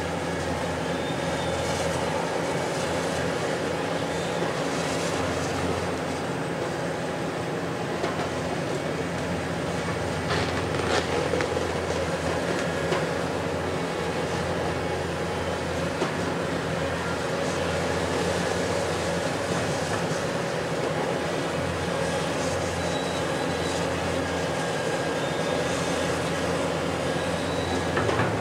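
Diesel engine and hydraulics of a Hitachi 870 XXL high-reach demolition excavator running steadily under load, with a faint high squeal now and then. A few short knocks and cracks come through as its crusher jaw works the concrete.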